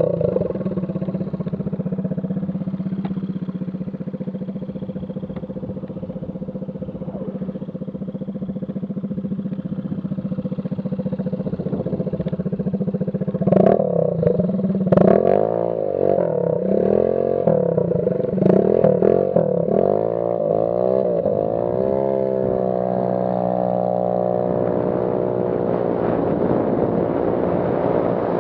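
GY6-type 139QMB single-cylinder four-stroke scooter engine running loud through a gutted muffler, its internals gone and only the can left. It runs steady for about the first thirteen seconds, then revs up and down over and over, and settles into a steady, higher pitch from about twenty-two seconds in.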